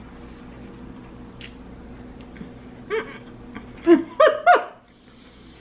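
A woman laughing: one short burst about three seconds in, then three quick, loud bursts of laughter, with a few faint clicks before.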